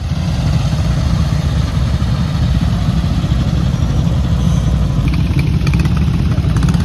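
Vintage WWII military motorcycle engines running, a loud steady rumble.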